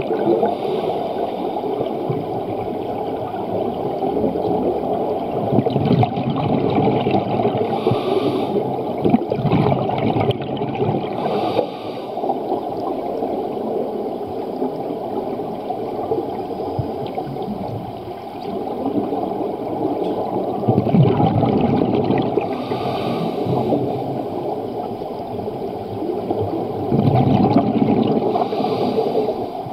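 Scuba divers breathing through their regulators underwater: exhaled bubbles gurgle out in surges every few seconds over a steady low rush of water noise.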